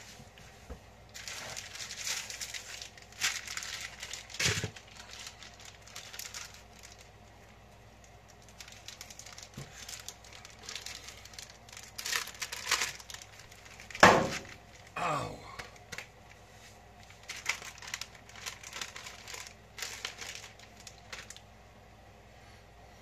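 Plastic food packaging crinkling and rustling in irregular bursts as it is handled and pulled open. About fourteen seconds in there is one sharp, loud snap with a brief falling squeak after it.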